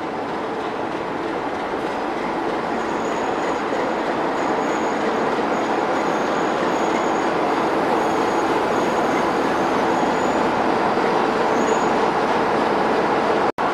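British Rail Class 45 'Peak' diesel locomotive running into a station platform with its train, its Sulzer 12LDA28-B engine and wheels growing steadily louder as it draws up close. A faint high squeal comes and goes as it slows. The sound drops out for an instant near the end.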